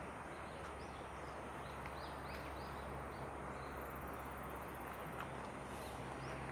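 Small birds chirping in short repeated notes over a steady outdoor background hum.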